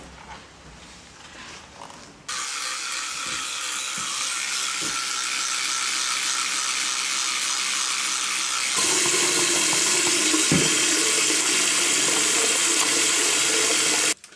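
Bathroom tap running steadily into a sink. It starts suddenly about two seconds in, gets louder about nine seconds in and cuts off sharply near the end.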